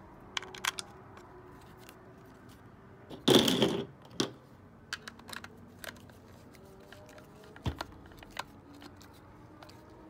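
Hand screwdriver turning small screws into a cast EGR venturi pipe housing: scattered light clicks and ticks of the tool and metal parts being handled, with one louder scraping rustle about three seconds in.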